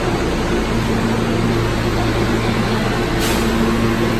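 R143 subway train standing at the platform with its doors open: a steady hum of its onboard equipment with several held low tones, and a brief hiss about three seconds in.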